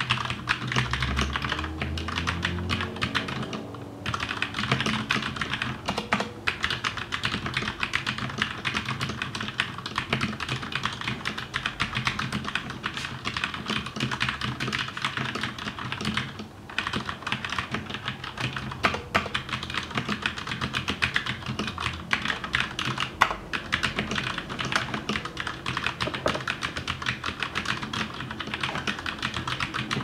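Typing on a KBT Race II mechanical keyboard with Cherry MX Red switches, PCB-mounted for a softer typing sound: a dense stream of key clicks, with brief breaks about 4 and 16 seconds in.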